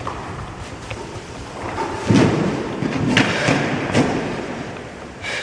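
A climber drops off a gym rope onto padded gym mats, landing with a heavy thud about two seconds in, followed by two lighter thumps.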